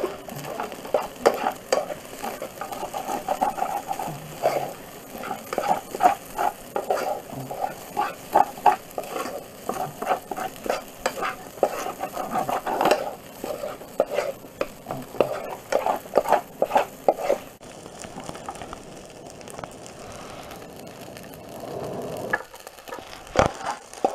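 A spoon scraping and stirring in a small metal saucepan of food frying on a camping stove, with a sizzle under quick, irregular strokes. The stirring lets up for several seconds near the end, then starts again.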